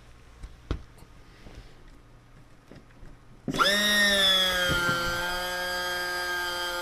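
A few faint clicks, then about halfway in a small electric hydraulic pump on a model aircraft's retractable landing gear starts up with a loud steady whine that sags slightly in pitch as it takes the load and holds on, driving the gear through its cycle.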